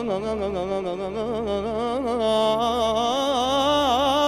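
Electric violin playing a slow, ornamented melody with heavy vibrato and slides, answering the singer's phrase in a mawal, over a steady low drone.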